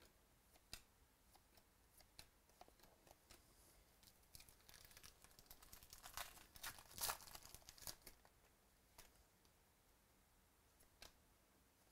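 Faint tearing and crinkling of a trading-card pack wrapper being ripped open by hand, loudest about seven seconds in, with scattered light clicks of the cards being handled before and after.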